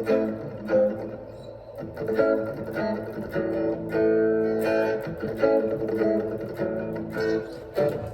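A guitar played unaccompanied: single picked notes and chords struck one after another, each left to ring and fade.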